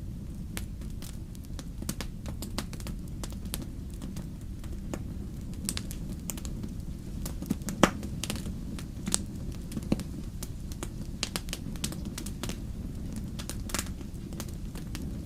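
Wood fire in a fireplace crackling: irregular sharp pops and snaps over a steady low rumble of the flames, with one louder pop about halfway through.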